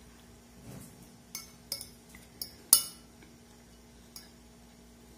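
A metal fork clinking and scraping against a ceramic dinner plate while eating: a handful of sharp clinks, the loudest about two and a half seconds in.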